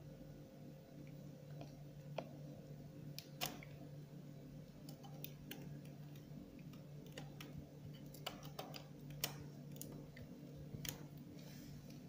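Homemade water pump running with a faint steady hum, with scattered irregular sharp clicks.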